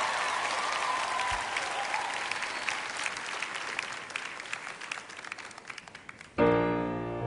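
Concert audience applauding, the clapping fading away over several seconds. Near the end a keyboard comes in with sustained chords.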